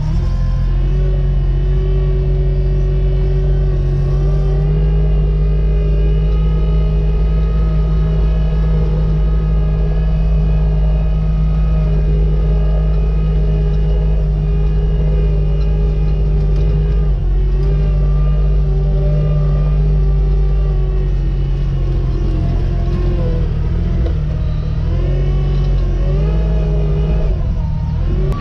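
JCB 403 Plus compact loader's diesel engine running steadily, heard from inside its cab as it drives with a round bale on the loader. The engine note shifts about two-thirds of the way through and dips and rises a few times near the end as it manoeuvres.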